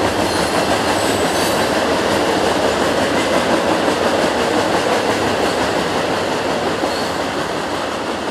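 Coal hopper cars of a freight train rolling past, a steady rumble of steel wheels on rail that eases off slightly near the end as the last cars go by. A short faint wheel squeal comes about seven seconds in.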